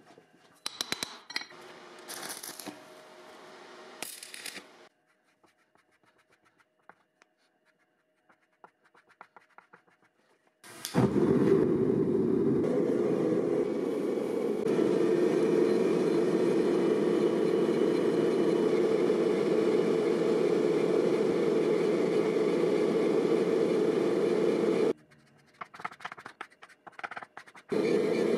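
Steel pieces scraping and clinking for the first few seconds, then near quiet. About eleven seconds in, a loud, steady rushing noise from forging equipment starts, runs for about fourteen seconds and cuts off suddenly. After a few clicks it starts again near the end.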